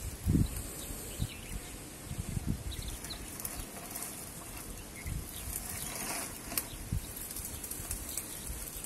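Faint rustling in dry leaf litter as a spectacled cobra crawls out over the ground, with a soft thump near the start and a few small knocks. Faint bird or insect chirps sound in the background.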